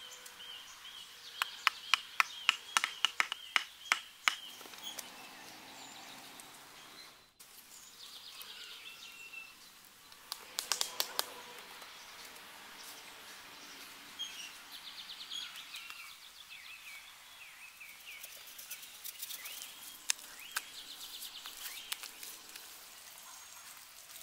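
Bamboo slats of a walkway clacking as they are handled and set in place: a quick run of about a dozen sharp wooden knocks, then a shorter cluster later. Birds chirp in the background throughout.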